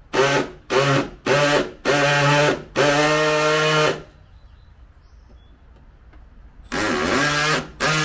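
Cordless drill-driver driving screws, run in short trigger pulses that grow longer, five in the first four seconds, each motor whine spinning up. After a pause of nearly three seconds it runs twice more near the end.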